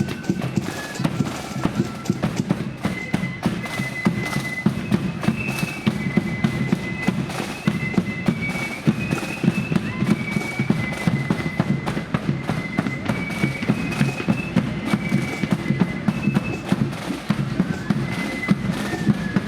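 A marching flute band playing a tune: flutes carry the melody over rapid, dense snare drumming and a heavy bass drum.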